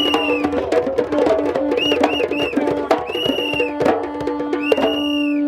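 Music with busy, clicking percussion over a held low note, and a high note that swells and falls back several times.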